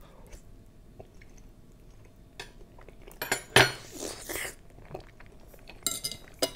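Metal fork clinking against a dessert plate, with a loud wet mouth sound about three and a half seconds in as a forkful of gelatin goes into the mouth. Near the end come a few sharp, ringing clinks as the fork is set down on the plate.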